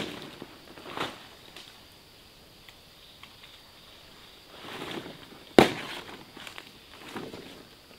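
Large banana leaves rustling and crinkling as they are handled and laid out, with a few sharp snaps. The loudest snap comes about five and a half seconds in, as a knife cuts through a leaf.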